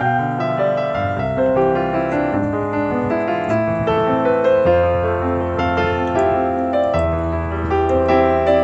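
Background piano music: a keyboard melody over sustained bass notes.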